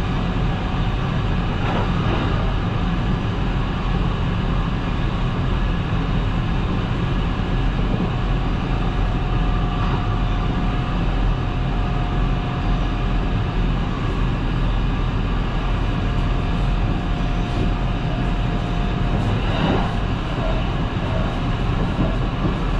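Kintetsu 22000 series ACE limited express train running at speed, heard from inside the car: a steady rumble of wheels on rail. A faint steady tone comes in about ten seconds in and fades near twenty seconds. There are two sharp clacks, one near the start and one near the end.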